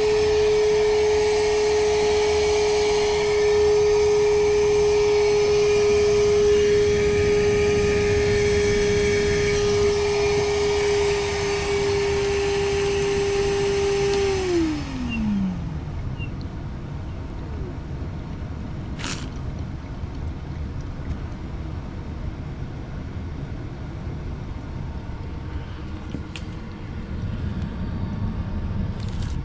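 Vacuum motor running with a steady high whine while it sucks out a clogged condensate drain line. About halfway through it is switched off and the whine falls in pitch as the motor spins down, leaving quieter background noise with a sharp click a few seconds later.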